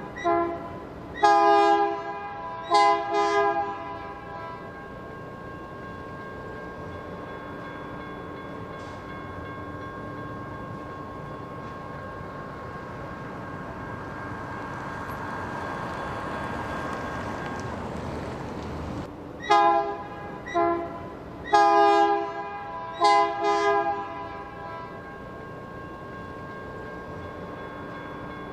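Diesel locomotive air horn sounding a chord in two groups of four blasts, one near the start and one about twenty seconds in, each a mix of shorter and longer blasts. Between them a steady locomotive engine rumble that swells in the middle.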